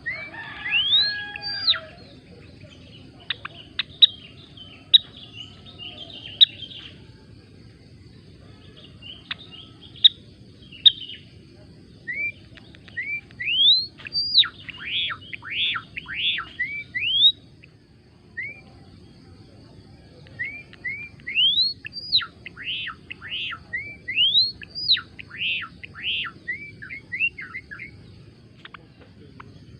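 Gelatik belong singing: bursts of quick, upward-sweeping chirps and chattering phrases, with a short lull about halfway through.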